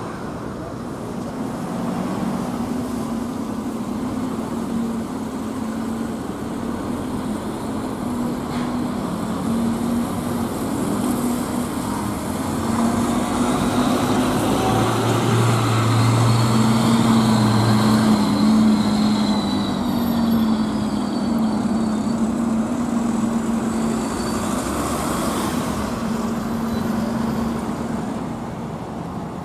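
Diesel bus engine running as a large bus pulls away and drives past, over general road traffic. It grows louder to a peak about halfway through, then eases off as the bus moves away.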